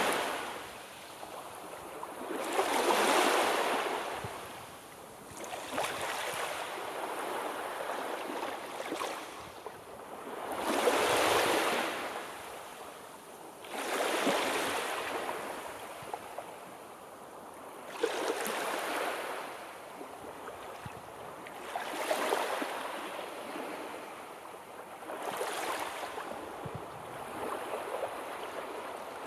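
Sea waves washing in and drawing back: each wave is a rush of surf noise that swells and fades, arriving every three to four seconds.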